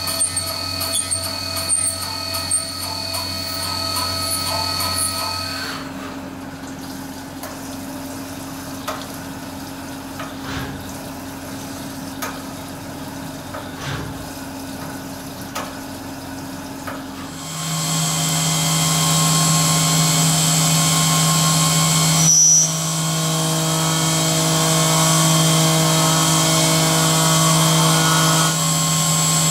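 Syil X7 CNC milling machine cutting an aluminium bracket under flood coolant: a steady spindle whine with coolant spray as the drill works. About six seconds in it drops quieter with occasional light knocks, and about 17 seconds in it gets louder with a new, lower steady hum and whine as the machine moves on to another cutting operation.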